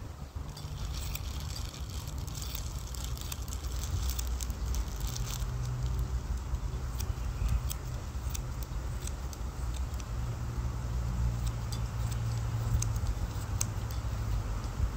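Haircutting scissors snipping through hair in quick, irregular snips, densest in the first few seconds, over a steady low rumble.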